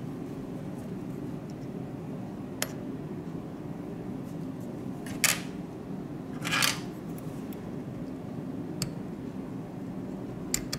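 Light clicks and two brief scrapes from fingers and metal tweezers handling a smartphone's motherboard in its plastic frame, over a steady low background hum.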